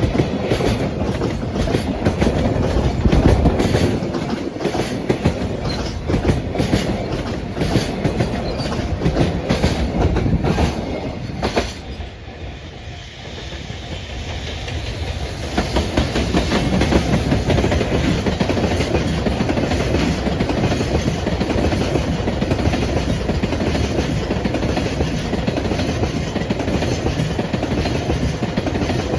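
Freight train of Koki container wagons passing close by, its wheels clicking rhythmically over the rail joints. It goes briefly quieter about twelve seconds in, then returns to a steady rolling noise.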